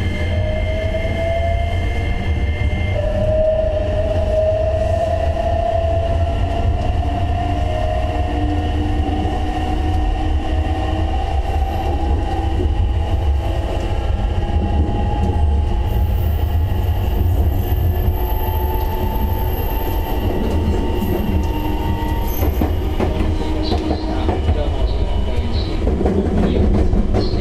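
Running sound of a 227 series electric train, which has mixed Toyo Denki and Toshiba IGBT VVVF inverters, heard from inside the car. The inverter and motor whine rises in pitch over the first several seconds as the train gathers speed, then settles into steadier tones over a constant low rumble of wheels on rail.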